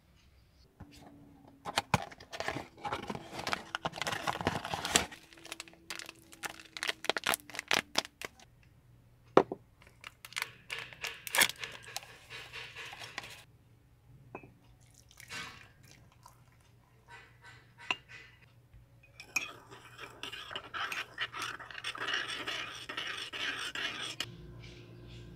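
A foil drink sachet crinkled and emptied into a ceramic mug, with crackling and rustling in spells, then a drink stirred in the mug, scraping and clinking for several seconds near the end.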